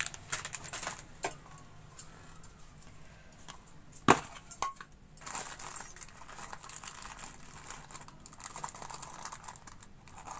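Scattered small clicks and clinks of kitchen utensils and spice containers being handled, with one sharp click about four seconds in.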